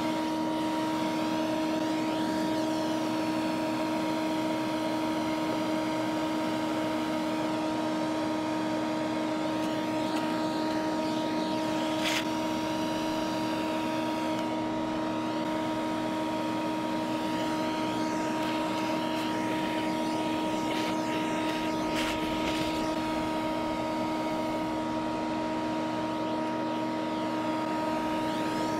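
A vacuum motor running steadily with a constant whine as its hose sucks adult yellowjackets off nest comb. A sharp click sounds twice, about halfway through and again later.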